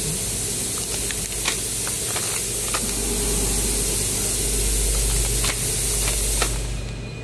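Steady workshop machinery noise: a broad hiss over a low hum, with scattered sharp clicks. The hiss drops away near the end.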